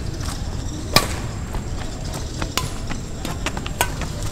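Badminton rackets striking a shuttlecock in a rally: a series of sharp cracks, the loudest about a second in, with lighter taps between.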